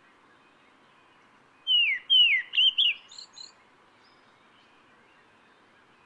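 Kurrichane thrush calling: one short phrase of loud whistles, two falling notes followed by a few quicker, higher notes that fade out, starting a little under two seconds in.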